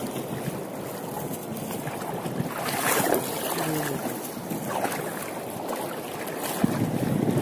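Wind buffeting the microphone over shallow sea water, with water splashing and sloshing around wading legs. A louder surge of splashing comes about three seconds in.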